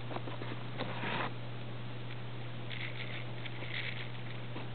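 Seiko 5 automatic watch shaken by hand: its self-winding rotor spins inside the case with a faint rattle, heard in short spells about a second in and again from about three to four seconds in. It is the sound of the automatic movement winding itself.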